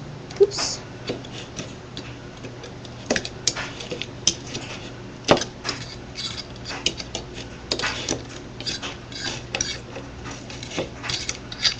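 Metal fork scraping and clicking against a baking tray, prying baked treats loose: irregular sharp taps and short scrapes.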